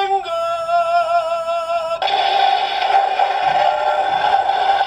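Electronic sound from the DX Whale Change Gun toy's speaker playing its mecha-summoning music: a held synthesized tone with a slight waver, switching about two seconds in to a fuller sustained chord.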